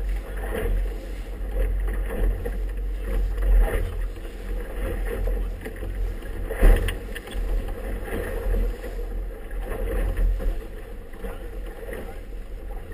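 Strong wind buffeting the microphone while water splashes and slaps against a small boat's hull as it runs through choppy, wind-driven chop, with one sharp slap about halfway through.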